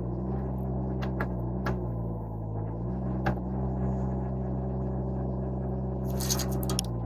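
Derette V1000 mini skid steer's engine running steadily, driving a stump grinder attachment. Its pitch sags briefly between two and three seconds in and then recovers. A few sharp clicks sound in the first half, and a short hissing burst comes near the end.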